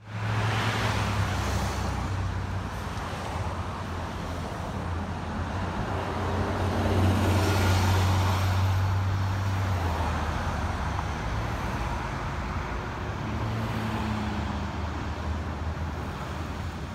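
New Flyer XN60 articulated natural-gas bus driving away, its Cummins Westport engine giving a steady low drone that is loudest about eight seconds in, then fades into general road traffic.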